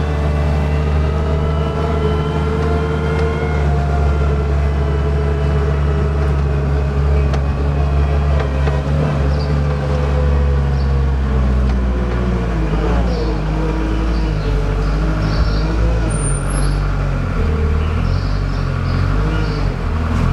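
Tractor engine running under way, with a whine that slowly falls in pitch over the first ten seconds; the engine note changes about twelve seconds in.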